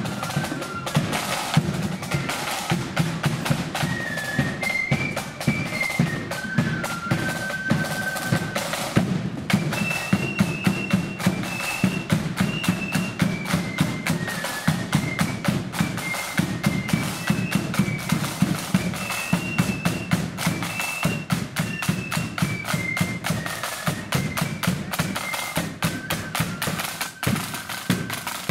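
Blood-and-thunder marching flute band playing a tune: massed flutes carry a high melody over rapid side-drum rolls and the beat of a big bass drum.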